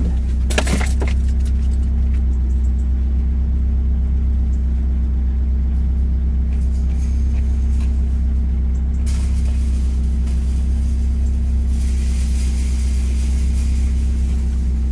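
Mazda MX-5's four-cylinder engine and road noise droning steadily inside the cabin while driving. A louder rushing hiss comes in about nine seconds in and again from about twelve seconds.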